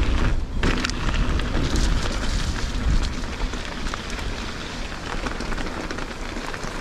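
Mountain bike tyres rolling over a stony track, with wind buffeting the chest-mounted camera microphone: a steady rushing rumble with fine crackling grit, louder for the first three seconds and easing after.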